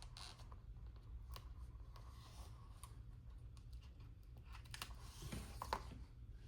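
Planner stickers and paper being handled: scattered light clicks and rustles as stickers are peeled from their sheet and pressed onto a planner page, with a slightly louder scrape near the end and a low hum underneath.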